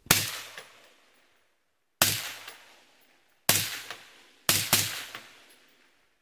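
Five suppressed rifle shots from a short-barreled AR-15 fitted with a YHM Phantom 7.62 Ti suppressor, each trailing off over about a second. The shots are fired singly, one to two seconds apart, with the last two in quick succession.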